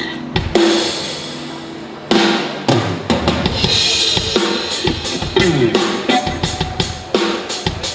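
Live band music with drum kit and electric guitar. After a first hit, the full band comes in loudly about two seconds in, and the drums keep a steady beat from there.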